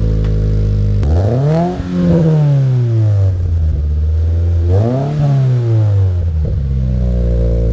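Subaru BRZ's flat-four boxer engine running through a freshly installed Invidia N1 aftermarket exhaust, idling and blipped twice: the revs climb about a second in and again near five seconds, each time sinking slowly back to idle.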